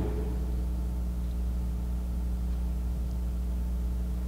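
Steady low electrical hum with a faint hiss, unchanging throughout; no bells or other events.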